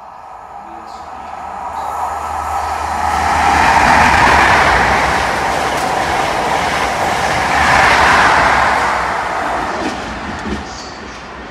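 CrossCountry InterCity 125 (HST) with power cars 43207 and 43378 passing through at speed. A rush of wheels and rail noise with a low diesel hum swells to a loud peak about four seconds in, holds as the coaches go by, peaks again near eight seconds as the rear power car passes, then fades.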